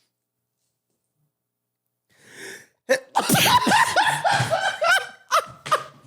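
A sudden, loud sneeze set off by snorting ground black pepper, with a short breath in just before it. It breaks straight into laughter that pulses about three times a second near the end.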